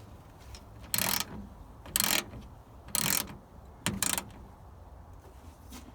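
Ratchet wrench tightening a nut or bolt: four short ratcheting strokes about a second apart, over a low steady hum.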